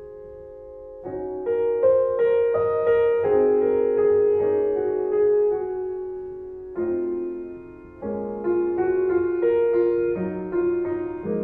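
Background piano music: a slow melody of single notes over chords, each note struck and fading away.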